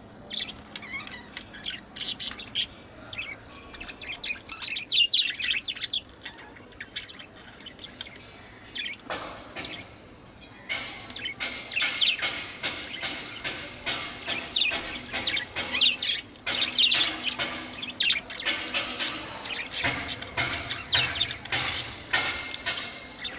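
A flock of budgerigars chirping and warbling, many quick high chirps overlapping. The chatter drops to a lull about a third of the way in, then picks up busier than before.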